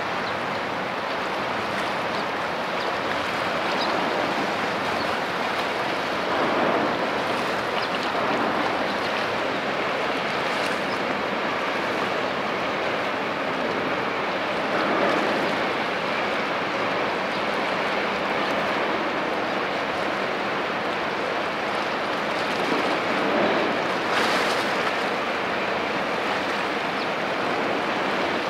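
Choppy sea water washing and rushing steadily, swelling louder about every eight seconds as waves wash in.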